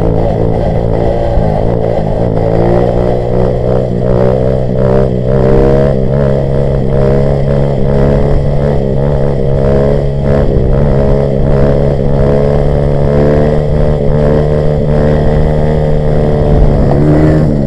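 Grom-clone minibike's small single-cylinder engine held at a steady pitch under throttle through a long wheelie, with wind rumble on the microphone. The pitch dips near the end.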